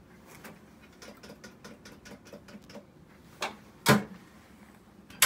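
Small clicks and rattles as the mixing cup is seated in the holder of a Mazerustar planetary mixer, then the mixer's lid is shut with a loud knock about four seconds in, followed by a sharp click near the end.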